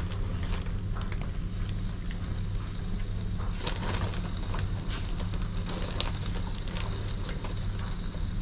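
Plastic bag crinkling and rustling in the hands as grated cheddar is shaken out of it, with scattered crackles, over a steady low hum.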